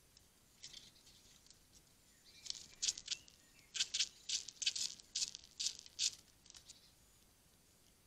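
A Eurasian red squirrel scrabbling and rummaging on a wooden bird feeder house: a quick run of about a dozen short rasping scratches, roughly three a second, starting about two and a half seconds in and stopping near the end.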